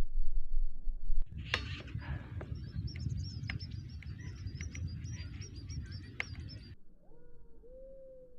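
Animal calls: a fast run of short, high-pitched chirps, several a second, over a low rumble. They stop near the end, leaving a few softer, lower whistled notes.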